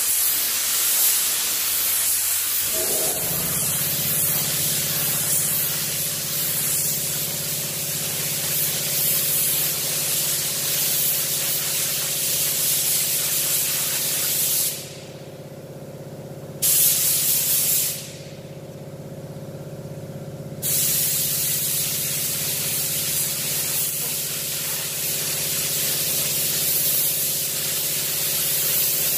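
Paint spray gun hissing as paint is sprayed, with two short pauses about halfway through where the spray stops. A steady low hum comes in about two and a half seconds in and runs on.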